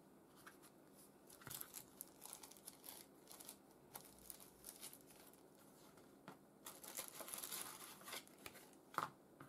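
Faint crackling and crinkling as the backing film is peeled off a sheet of thermal adhesive tape. A longer stretch of rustling comes near the end as the tape's packaging is handled.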